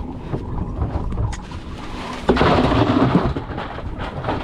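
Wind buffeting the microphone with a steady low rumble. About two seconds in, a sudden louder rushing noise lasts about a second before the rumble settles back.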